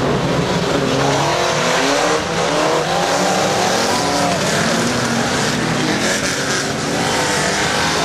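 Several banger-racing cars' engines revving hard together as the pack races round a wet oval, many engine notes rising and falling over one another.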